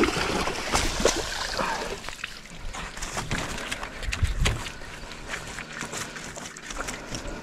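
A hooked pike splashing at the surface beside a wooden dock as it is landed, loudest in the first second. Scattered knocks and clicks of handling on the dock planks follow.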